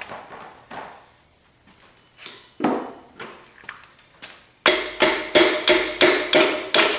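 Hammer striking metal parts of a seized small-block Chevy 350 engine during teardown. First a few scattered knocks, then, about two-thirds of the way in, a quick run of ringing blows at about three a second.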